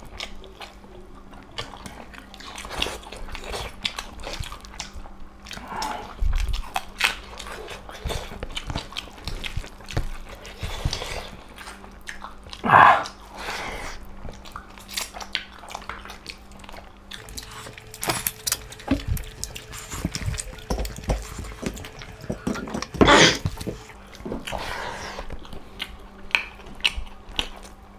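Two people chewing and biting on rice and curried meat eaten by hand, with wet mouth smacks and small clicks close to the microphone. Two short, much louder sounds break in, about halfway and again near the end.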